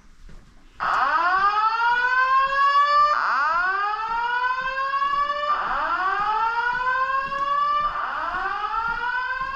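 Fire alarm voice-evacuation speakers sounding the whoop evacuation tone: a loud tone that sweeps upward, fast at first and then levelling off. It begins about a second in and repeats four times, each whoop about two and a half seconds long.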